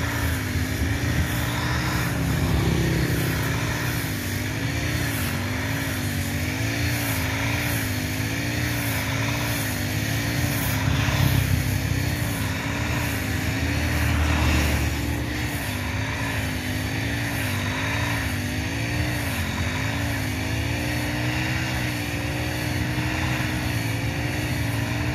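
Honda GX35 four-stroke brush cutter running hard while cutting roadside grass, its engine note rising and falling about once a second as it works. Motorbikes pass by near the middle.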